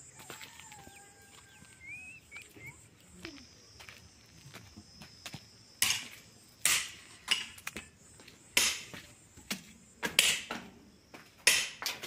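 Footsteps crunching on dry ground and leaves, about one step a second, starting about halfway through, over a steady high insect drone. A short gliding bird call comes near the start.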